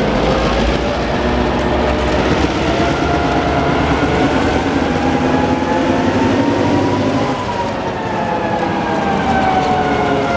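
CN diesel locomotives working at close range while shunting hopper cars, the engines running with a loud mechanical drone. The whine rises in pitch for about seven seconds and then falls away.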